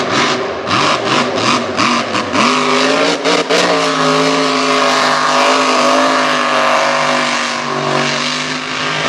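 Mega truck engine at full throttle in a mud pit. During the first couple of seconds the sound chops in and out in quick pulses; around three seconds in the revs dip and climb again, and the engine then holds a steady, high-revving note.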